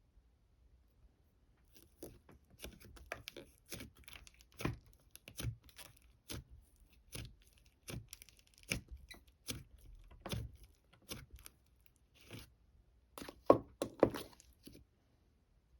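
Close-up handling noise: a string of light taps and clicks, roughly one a second, with short rustles between them. It starts about two seconds in, and there is a louder cluster of knocks near the end.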